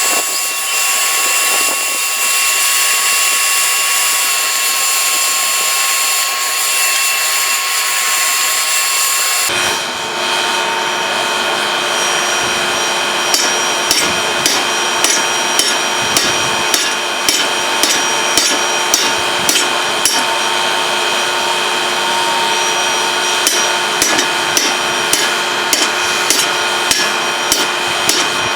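Hammer blows on steel at an anvil, in a regular rhythm of about two strokes a second, each blow ringing. They play over a steady hum. Before them, a steady whirring machine noise runs for the first third and cuts off abruptly.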